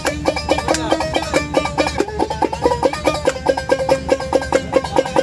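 Small banjo-like string instrument with a round drum body, plucked in a quick run of short picked notes that make a repeating melody. A low steady rumble sits underneath.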